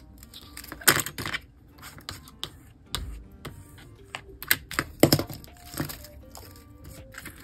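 Paper and card being handled on a work surface: a series of short taps, clicks and rustles, loudest about a second in and again around five seconds in, with a soft thump near three seconds. Quiet background music plays underneath.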